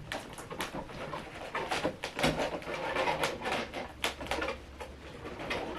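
Figure packaging being handled while a taped-on base piece is worked loose: a quick, irregular series of short rustles and scrapes.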